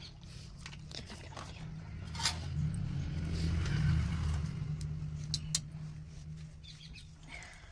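A metal skimmer ladle stirring and scraping crumbly laddoo mixture in a steel bowl, with a few sharp clinks of metal on metal. A low hum swells through the middle and fades toward the end.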